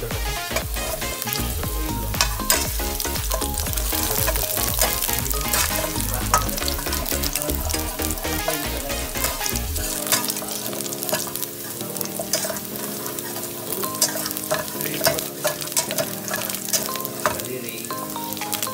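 Sliced garlic sizzling in hot oil in a stainless steel pot, with a spoon stirring it and clicking against the metal many times.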